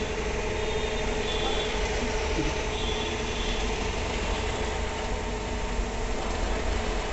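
ATM's cash dispenser mechanism running steadily while the withdrawal is processed: a continuous, even mechanical hum as the notes are picked and counted.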